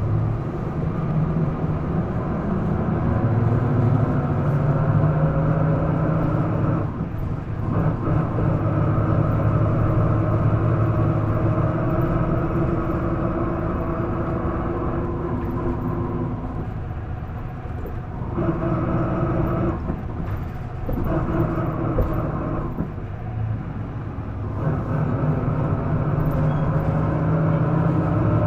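Isuzu Erga city bus engine heard from inside the cabin, revving high while pulling away, its pitch climbing and then dropping back several times as the gears change. This bus is known for an unusual mechanical noise that its recordist cannot account for.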